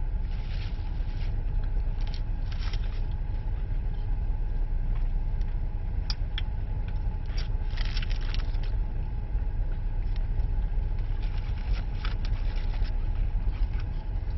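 Steady low rumble of a car, heard from inside the cabin, with scattered light clicks and rustles on top.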